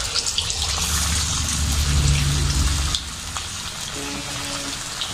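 Marinated chicken lollipops sizzling and crackling as they deep-fry in hot oil in a steel kadai. The sizzle is loudest for about the first three seconds after the pieces go in, then settles to a steadier, slightly quieter sizzle.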